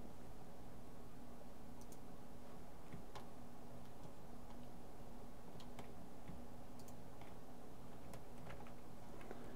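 Irregular, scattered clicks of a computer mouse and keyboard as Shift-clicks are made, over a steady low hum.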